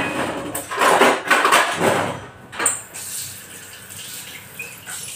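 Kitchen clatter of dishes and a glass being handled on a counter, loudest in the first two seconds, with a sharp clink about two and a half seconds in.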